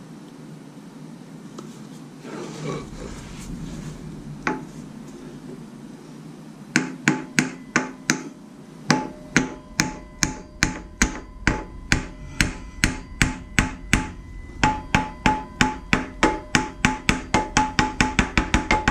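Small sledgehammer striking the harmonic balancer of a Jeep 4.0 inline-six, driving it onto the crankshaft nose. A few quiet handling sounds and a single knock come first. From about seven seconds in there is a steady run of sharp metallic blows with a ringing note, about three a second, quickening near the end.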